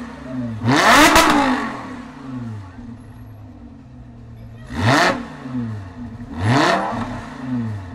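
Lamborghini Huracan's naturally aspirated V10 blipped three times while stationary, about a second in, near the middle and near the end. Each rev climbs quickly and drops straight back to a steady idle.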